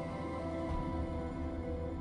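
Tense suspense film score: sustained held tones over a low drone.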